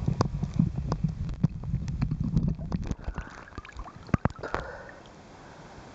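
Water heard through an underwater camera: a muffled low rumble with many sharp clicks and knocks. About three seconds in the camera breaks the surface; the rumble stops, leaving a quieter hiss with a few clicks and a brief splash.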